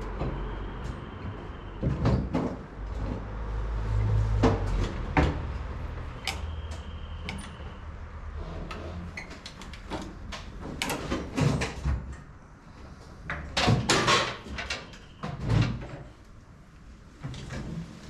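Irregular knocks, clunks and rattles of parts being handled and pulled loose inside a Deutz DX tractor cab as its interior is stripped out, with two brief high-pitched tones early on.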